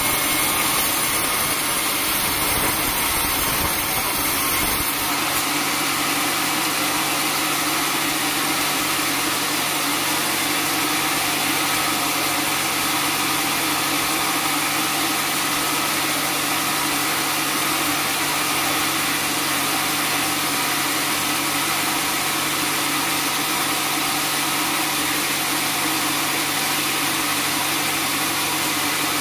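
Band sawmill running steadily with an even machine hum. A low rumble drops away about five seconds in.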